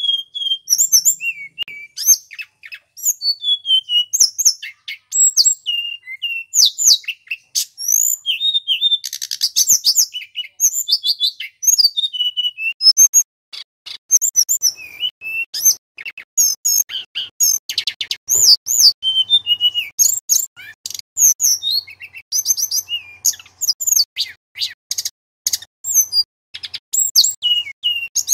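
Male tledekan gunung, a blue-and-orange Cyornis flycatcher, singing almost without pause: quick phrases of high whistled notes that slide up and down, mixed with rapid chattering trills.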